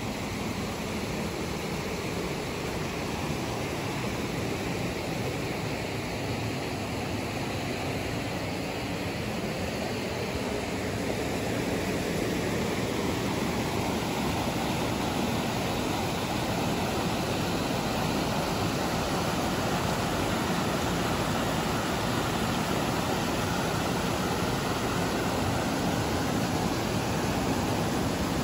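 Fast-flowing alpine river rushing steadily over rocks and stones, a continuous even roar of water that grows slightly louder about halfway through.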